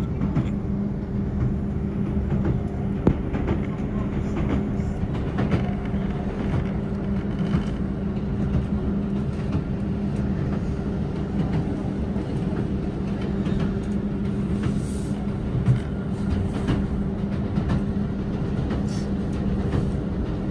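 Diesel passenger train running, heard from inside the carriage: a steady engine drone and rumble with a few knocks from the wheels on the track.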